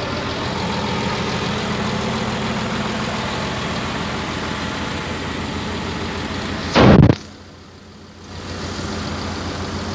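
Excavator's diesel engine idling steadily while it warms up before work. About seven seconds in, a short loud rush of noise cuts across it, and for about a second after that the sound is much quieter before the steady engine note returns.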